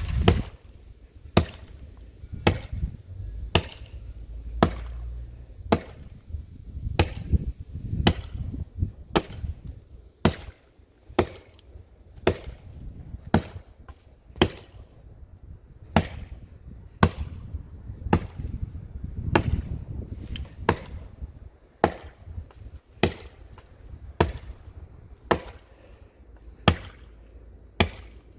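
Council Tool Woodcraft Pack Axe chopping into the trunk of a dead pine tree. Sharp, regular strikes come about one a second.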